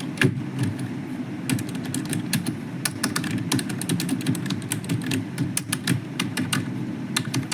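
Keys of an Amazon Basics wireless keyboard being pressed in quick, irregular runs: a few key clicks at first, then a dense patter of clicks from about a second and a half in.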